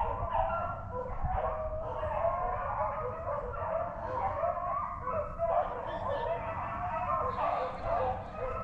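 A pack of beagles baying and yipping on a rabbit's trail, several dogs' voices overlapping without a break.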